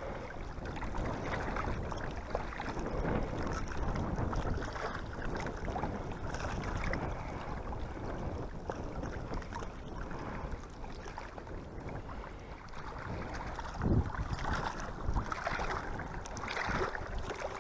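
Wind buffeting the microphone outdoors, a steady low rumble that rises and falls in gusts, with a stronger gust about fourteen seconds in.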